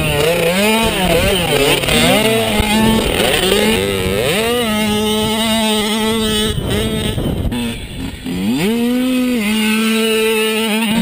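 Small dirt bike engine revving as it is ridden, its pitch climbing and falling with throttle and gear changes and holding steady in stretches. The note drops briefly about three-quarters of the way through, then climbs again.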